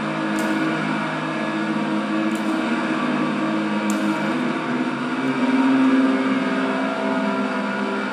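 Electronic drone from a homemade knob-covered electronic instrument: several held tones layered over a hiss, slowly shifting in pitch and swelling louder about five seconds in, with a few faint ticks.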